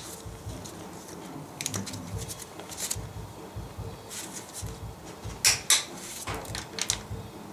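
Click-type torque wrench set to 80 being pulled on the cylinder head bolts: scattered short clicks and scrapes of the wrench and socket, with a louder double click about five and a half seconds in.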